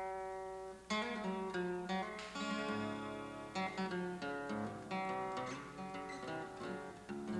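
Title music: an acoustic guitar picking a melody, one plucked note after another ringing out over lower bass notes.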